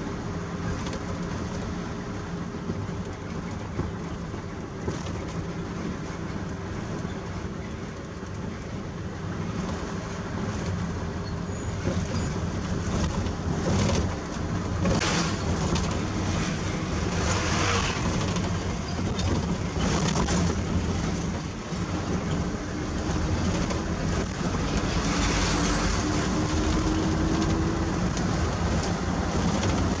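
Mitsubishi Fuso truck's diesel engine and road noise heard from inside the cab while driving. An oncoming vehicle passes about halfway through, and the engine note rises near the end as the truck picks up speed.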